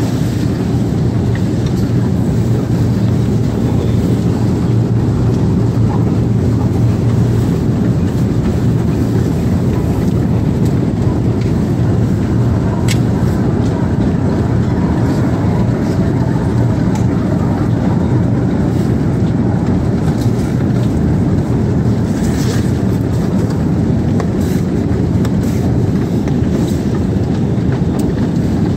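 Escalator running: a steady low mechanical hum and rumble, with a few faint clicks now and then in the second half.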